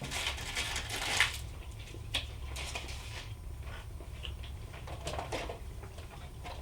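Rustling and light clicks of paper and plastic snack packaging being handled and sorted, with the loudest rustle in the first second and a sharp click about two seconds in.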